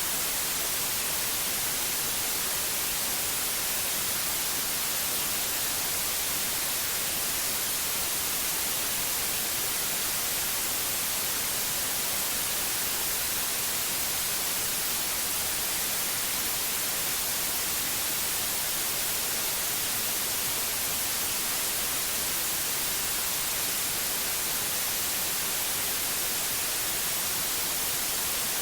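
Steady white-noise hiss, even and unchanging, strongest in the high range, with no tones or breaks.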